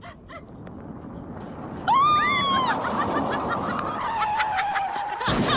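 An animal's loud call starting about two seconds in: a short arched note, then a long held note that falls slightly for about three seconds. A sudden noisy sound comes near the end.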